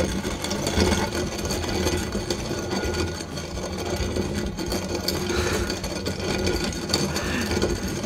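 Kalita Dia Mill cast-iron hand coffee grinder being cranked by its flywheel, grinding coffee beans with a steady, dense crackling rattle.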